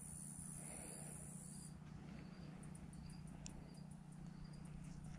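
Faint outdoor ambience with insects: a steady high buzz that stops about two seconds in, then short faint chirps repeating about every half second, over a low steady hum.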